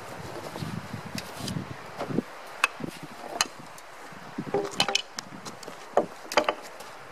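A gloved hand brushing sawdust off a sawn log surface, followed by footsteps and a few sharp knocks and clicks.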